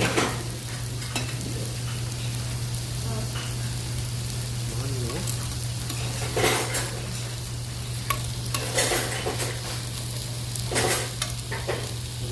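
Pork belly (samgyeopsal) sizzling as it grills: a steady frying hiss with louder crackling spurts several times, around the start, at about six and a half, nine and eleven seconds in. A steady low hum runs underneath.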